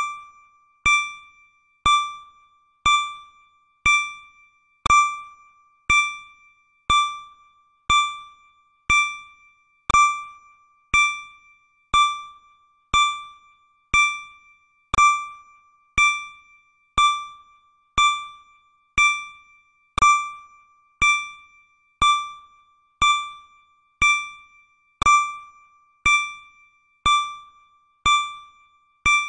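Countdown timer sound effect: a short electronic ding once a second, each fading quickly, always on the same pitch.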